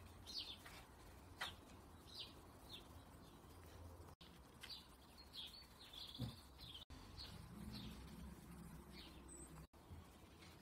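Faint garden birdsong: scattered short, high chirps from small birds, over a low steady hum.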